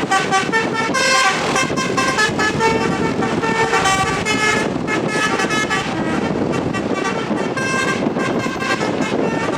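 Basuri telolet multi-trumpet air horn on a tour bus playing a fast tune of short, overlapping notes without pause, over engine and traffic noise.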